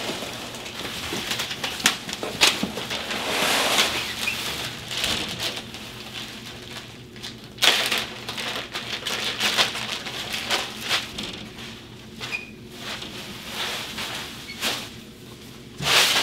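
Crumpled packing paper and a plastic bag rustling and crinkling as a rifle is unwrapped from its cardboard box and cloth sleeve, with scattered clicks and a sudden louder knock about halfway through.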